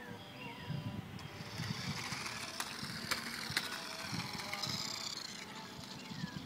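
Toy radio-controlled car's small electric motor whining as it drives over pavement, its high pitch rising and falling with the throttle, starting about a second in and dying away about a second before the end, with a few sharp clicks.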